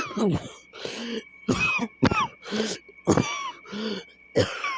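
A person coughing over and over in a fit: about eight sharp coughs in quick succession, some with a squeaky, voiced edge.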